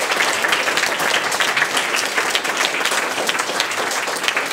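A crowd applauding: many people clapping steadily together.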